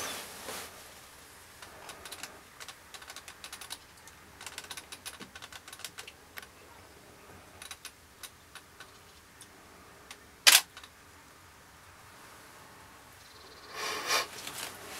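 Short dry clicks and ticks in quick irregular runs, one much louder sharp click about ten and a half seconds in, and a brief rustling burst near the end.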